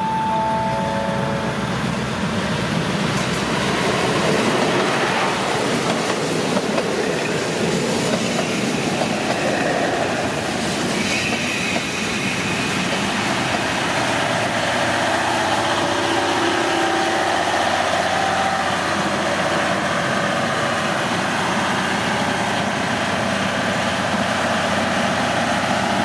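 KiHa 183 diesel railcar set rolling slowly past at close range as it pulls into the platform: a steady rumble of its diesel engines and wheels, with clicking over rail joints and a brief high squeal about eleven seconds in. A short falling three-note chime sounds at the very start.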